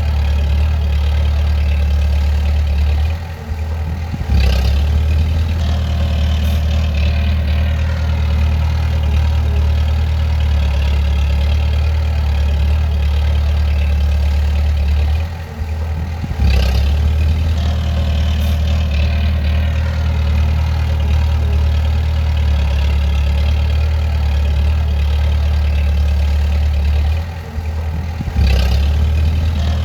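Bulldozer's diesel engine running with a steady low drone. Three times, about twelve seconds apart, the sound drops off for about a second, then comes back with a sharp knock.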